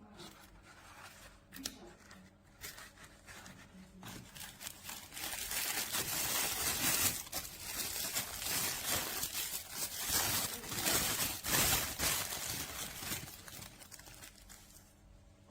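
Crinkling and rustling of wrapping material being handled, with many sharp crackles. It builds up and is loudest through the middle, then fades near the end.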